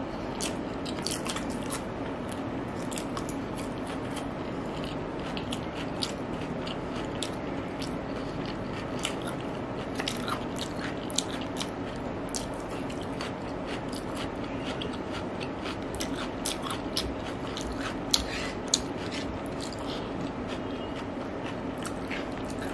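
Close-miked chewing and crunching of raw cucumber and onion slices, with many short crisp crunches and mouth clicks throughout, over a steady low hum.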